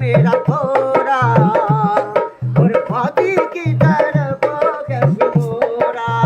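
Naal, a two-headed barrel drum, played by hand in a repeating rhythm of deep bass strokes and sharper slaps. A wavering singing voice carries the tune over it.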